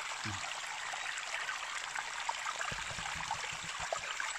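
Creek water running and trickling over rocks, a steady rush, with a few soft low knocks in the second half.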